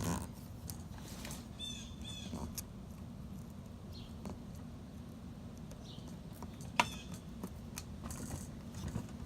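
Steady low hum with scattered faint clicks, and a short run of bird chirps about two seconds in.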